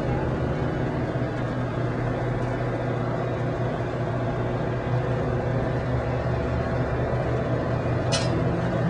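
Steady low machine hum, even and unchanging, with a single brief sharp click about eight seconds in.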